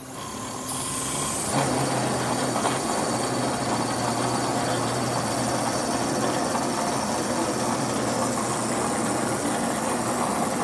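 Rauch 113HD hydraulic pipe spinner running, turning a 10-foot section of 12-inch steel well casing. The noise builds over the first second and a half as the lever is worked, then runs steadily with a low hum under it.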